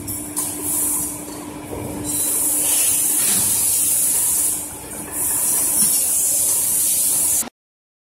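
Factory workshop noise: a loud high hiss in two long stretches over a steady low hum, cutting off abruptly about seven and a half seconds in.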